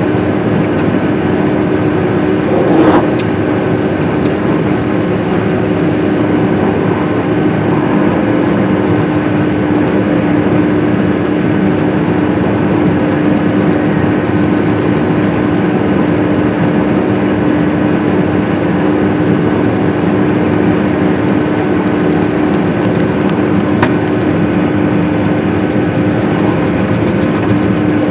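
Case IH swather's four-cylinder engine running steadily while cutting hay, a constant hum with a strong steady tone. About three seconds in there is a brief louder knock.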